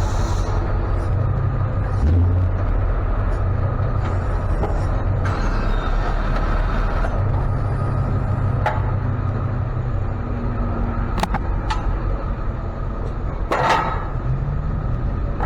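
Ford F-550 tow truck driving: a steady low engine and road rumble, with a few sharp clicks and rattles in the second half.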